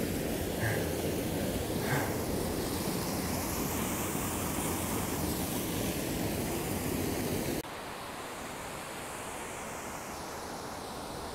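Small waterfall rushing steadily, water pouring over a rock ledge into a pool. About two-thirds of the way through, the rush drops suddenly to a quieter, duller sound.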